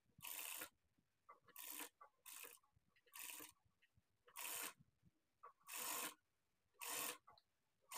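Industrial sewing machine stitching in short runs, about eight bursts of roughly half a second each with pauses between, as a neck facing is sewn around a curved neckline.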